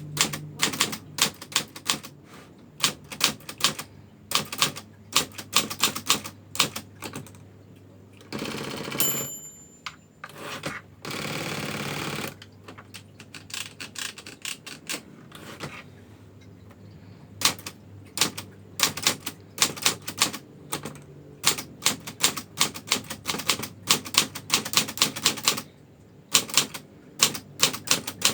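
Brother manual typewriter being typed on: irregular sharp key strikes clacking against the platen. About nine seconds in a short bell ding sounds, and around eleven to twelve seconds a long sliding rattle of the carriage return follows. The typing then resumes.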